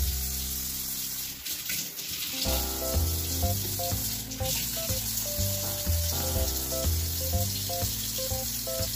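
Tap water running steadily from a kitchen faucet into a stainless steel sink as hands are washed under the stream. Background music with a bass line and short melodic notes plays over it.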